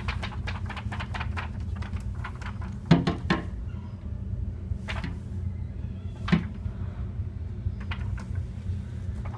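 Irregular knocks and taps, a few much sharper than the rest, over a steady low hum.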